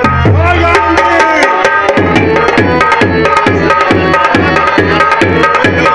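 Live music with a tabla-style hand-drum beat and sustained melodic notes over it; from about two seconds in, the drum settles into an even pattern of bass strokes that drop in pitch, about three a second.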